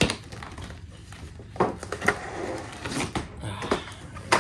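Blade cutting the packing tape on a cardboard box, with the box being handled: a scratchy rasp of the cut in the middle among several sharp knocks and taps on the cardboard.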